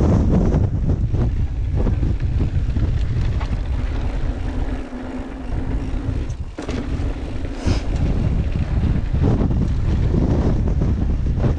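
Strong wind buffeting the microphone as a loud low rumble, easing briefly in the middle, where a steady low hum shows through before the buffeting returns.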